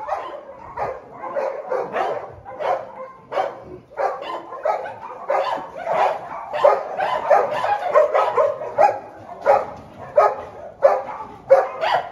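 A large pack of shelter dogs barking together, many short barks and yips overlapping into a dense, continuous din.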